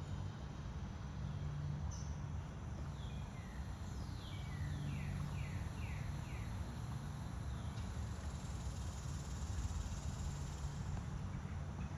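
Outdoor birdsong over a steady low hum: a run of quick falling whistled notes about four to six seconds in, with a few other single calls.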